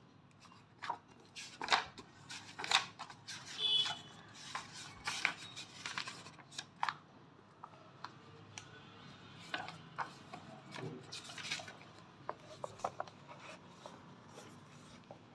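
Paper pages of a paperback book being flipped and turned by hand: irregular rustles and flicks, coming in two busy spells.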